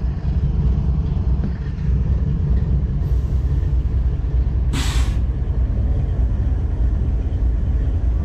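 Diesel-electric locomotive idling with a steady low rumble. About five seconds in, a short, sharp hiss of released compressed air.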